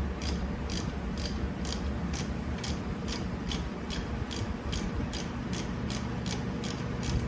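3/8-inch drive ratchet with a 7mm Allen socket clicking steadily, about three clicks a second, as it backs out dry, stiff brake caliper bolts, over a low steady hum.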